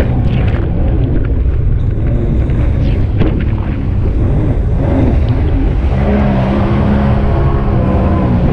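Sea-Doo RXP 215 jet ski's supercharged three-cylinder four-stroke engine running hard at speed. Its pitch dips and rises midway, then holds steady, under a heavy rush of wind on the microphone and splashing spray.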